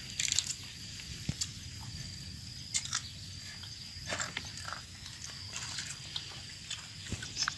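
People eating: crunchy bites and chewing, with scattered short crackly clicks.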